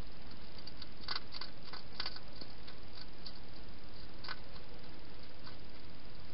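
A wild hedgehog feeding at a bowl, heard as small sharp clicks and smacks. They come in a cluster about a second in, then singly twice more, over a steady hiss.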